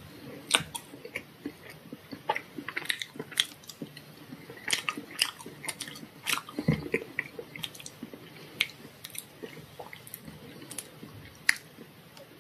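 Eating sounds: chewing mixed with irregular sharp clicks and scrapes of a plastic fork and knife cutting a tart on a wooden serving board, the loudest click about half a second in and another near the end.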